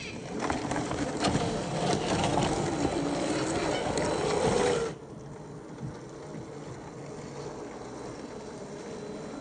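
Scale RC crawler truck driving: its electric motor and gear train whine with a wavering pitch over rough noise and scattered clicks. The sound cuts off abruptly about five seconds in, leaving a quieter steady rushing noise.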